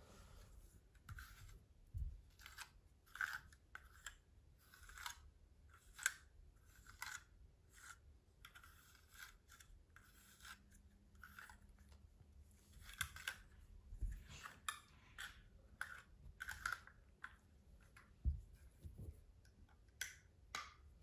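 Faint, short swishes of a bristle grooming brush stroking through a Yorkshire terrier's long coat, about one stroke a second at an uneven pace, with a few soft low thumps.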